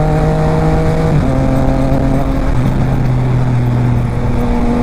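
Triumph Trident 660's inline three-cylinder engine running through an aftermarket Zard exhaust while riding. The engine note holds steady, changes about a second in, then carries on evenly.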